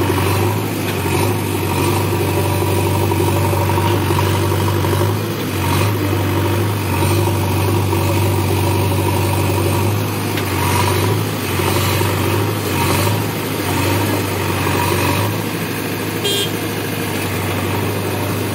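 JCB 3DX Xtra backhoe loader's diesel engine running steadily as the machine digs, its note swelling and easing several times in the second half as the load comes on and off.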